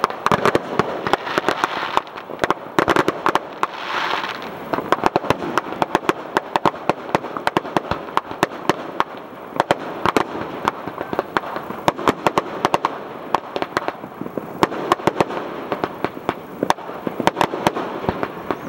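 Fireworks going off: a dense, continuous run of sharp bangs and crackles, many a second, with a brief hiss about four seconds in.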